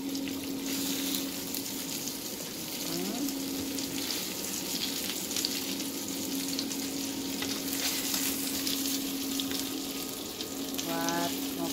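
Battered banana fritters sizzling and crackling as they fry in oil and butter in a wok, with a spatula turning them in the pan. A steady low hum runs underneath.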